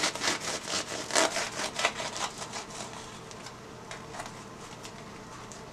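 Serrated bread knife sawing back and forth through the crust of a fried bake, about four strokes a second, dying away about three seconds in.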